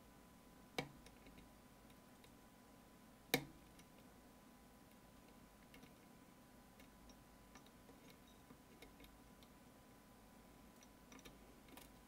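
Metal clicks of a lock pick and tension tool working the pins of an Opnus UX 13-pin lock: two sharp clicks a few seconds apart, then a few faint ticks near the end.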